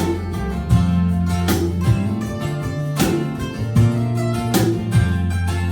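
Instrumental country music led by a strummed acoustic guitar, with a strong strum about every three quarters of a second over held low notes.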